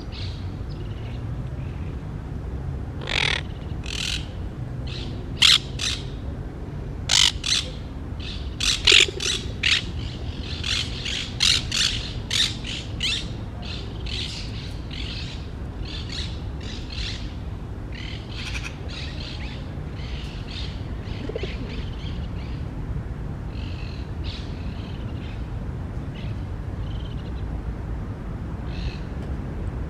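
Short, harsh animal calls repeated in quick runs, thick for the first half and scattered near the end, over a steady low rumble.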